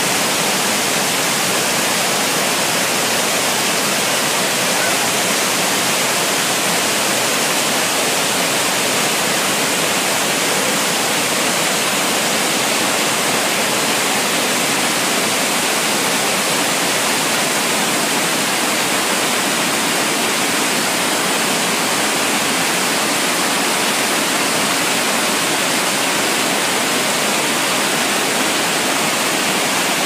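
Mountain river whitewater rushing over mossy boulders in a steep cascade: a steady, even rush of water with no breaks.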